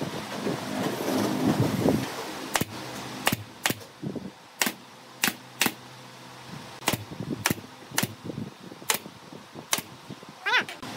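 A pneumatic nail gun fires about eleven times at uneven intervals, each a sharp crack as it drives a nail through a pine slat into the bed frame. The first two seconds hold scuffing noise, and a short high chirp comes near the end.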